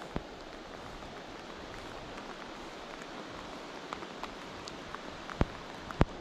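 Steady rain falling on a river's surface, an even hiss, with a few sharp taps, the loudest two near the end.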